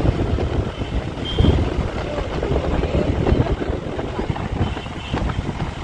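A van driving along a country road: engine and road noise, with wind buffeting the microphone held out of the side window.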